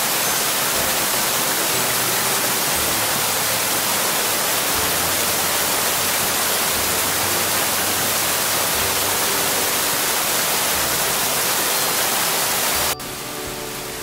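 Steady rush of a waterfall sheeting down a stone-block wall and splashing into the pool below, cut off abruptly about a second before the end.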